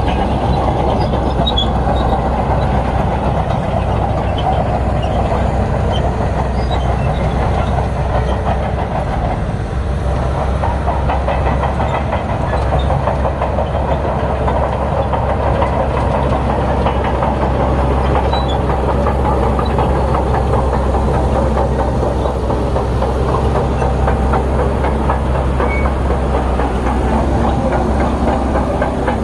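Bulldozer working: its diesel engine runs steadily under load while the steel tracks clank and clatter continuously.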